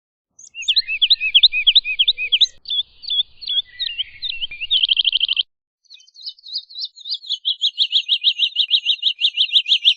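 Woodlark singing: a phrase of repeated slurred whistled notes that ends in a fast trill, then after a brief pause a long run of rapid repeated notes, about six a second.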